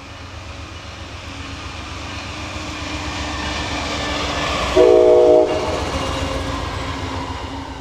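Amtrak passenger train led by a GE P42 diesel locomotive approaching and passing, its engine rumble and rolling noise building up steadily. It gives one short horn blast about five seconds in, then the noise eases off as the train goes by.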